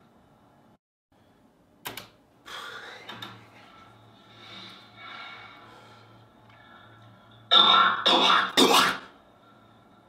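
A man coughing in short bursts, sped up and distorted by the edit: a short cough about two seconds in, a rasping one near three seconds, then a loud run of three coughs in the last third.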